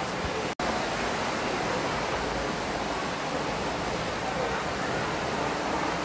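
Steady rushing background noise with no distinct tones or rhythm, cutting out for an instant about half a second in.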